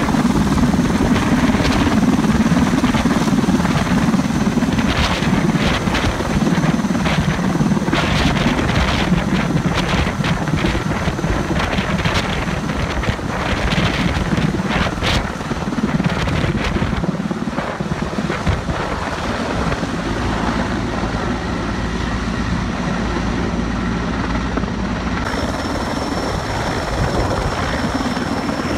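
Sikorsky S-64 Skycrane heavy-lift helicopter hovering low overhead with a cooling tower slung beneath it. Its rotor and turbines run loud and steady, with a thin high whine above the rotor noise; the whine steps slightly lower near the end.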